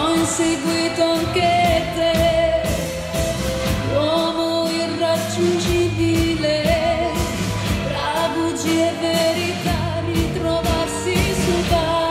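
A woman singing live into a microphone over a band with a steady beat; her held notes waver with vibrato.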